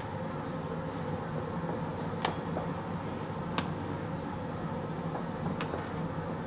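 A steady machine hum, with four sharp clicks or knocks at irregular moments.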